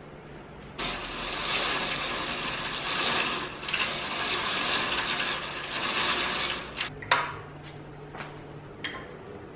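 Curtain being drawn open along its rod, its rings sliding with a long rattling scrape for several seconds, followed by a couple of sharp clicks near the end.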